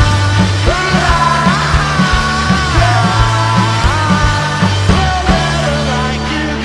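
Rock music soundtrack with a driving drum beat, bass, and a lead line that slides between notes.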